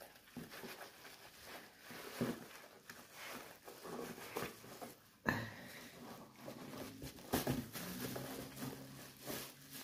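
Bubble wrap crinkling and rustling as hands dig into a cardboard box and lift out a wrapped die-cast toy bus, with a sharper crackle about five seconds in.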